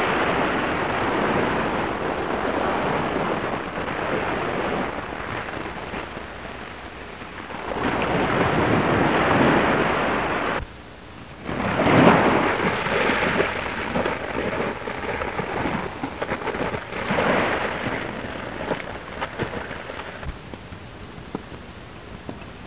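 Surf washing onto a beach, a rushing noise that swells and fades in several surges, with a sudden break for about a second near the middle.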